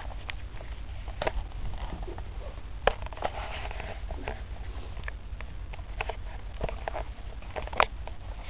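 Hamster gnawing at a cardboard box: irregular small crackling clicks, a few sharper ones standing out, over a low handling rumble.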